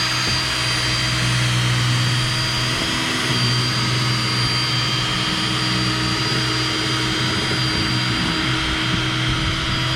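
Electric drill running at a steady, constant speed, driving an adjustable circle cutter through a sheet-metal plenum to cut a 14-inch round duct hole.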